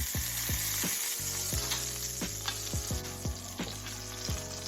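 Chicken tenders frying in hot oil in a skillet: a steady sizzle with sharp crackles.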